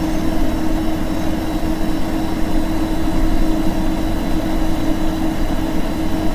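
Weather radio receiver putting out steady static hiss with a low, steady hum and no voice on the channel.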